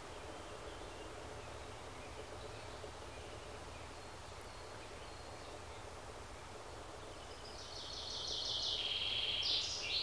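Black woodpecker nestlings begging at the nest hole: a rapid run of high, repeated notes that starts about three-quarters of the way in, builds over two to three seconds and ends abruptly, over a low steady rumble.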